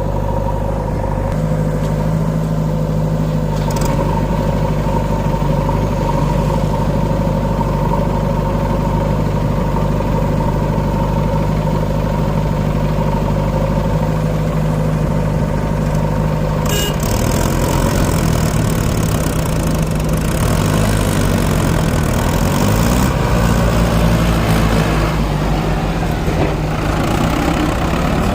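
Mahindra Arjun 555 tractor's diesel engine running steadily while pulling a loaded trolley. About two-thirds of the way through there is a single sharp knock, after which the engine's pitch wavers up and down as the load or throttle changes.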